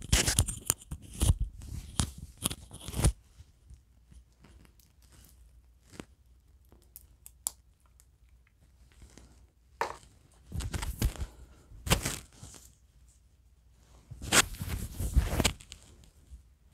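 Rustling and crackling handling noise from hands and clothing close to a clip-on microphone, with a few sharp clicks from the metal link bracelet of a wristwatch being fastened. It comes in three bursts: near the start, about ten seconds in, and near the end.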